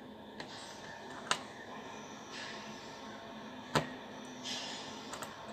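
A few sharp clicks, the loudest about four seconds in, with light rustling, as a small lever microswitch and metal multimeter probe tips are handled. The multimeter's continuity beeper stays silent.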